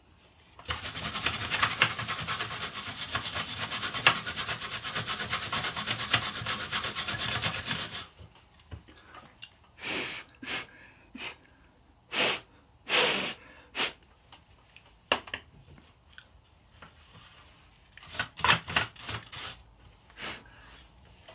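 Bristle clothes brush scrubbing dust off a graphics card's plastic twin-fan assembly: several seconds of rapid back-and-forth scrubbing, then a series of short, separate strokes.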